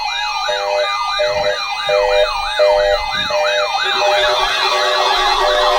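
Electronic siren sounding a rapid yelp, sweeping up and down about three times a second, with short horn-like blasts repeating about every three-quarters of a second. A second yelping siren and a steady lower tone join about four seconds in.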